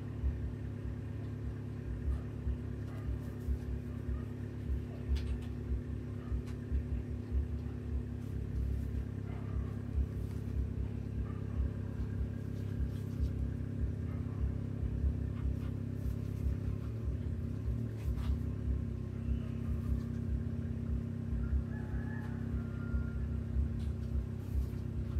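A steady low mechanical hum and rumble, like a motor or engine running nearby, its tone shifting briefly about seventeen seconds in.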